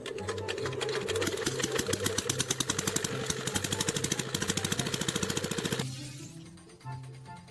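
A fast, dense mechanical rattle of rapid clicks over background music; the rattle stops suddenly about six seconds in, leaving the music.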